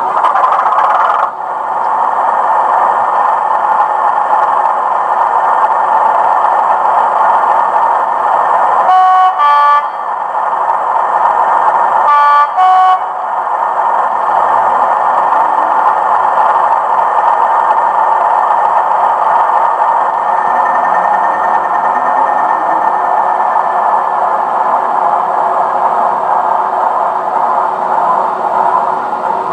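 Hornby TTS sound decoder in an OO-gauge Class 37 model playing a recorded Class 37 diesel engine running steadily through the model's small speaker. The two-tone horn sounds twice, about three seconds apart, over the engine.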